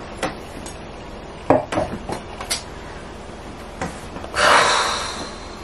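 A few light knocks and handling noises, then a short breathy hiss about four and a half seconds in.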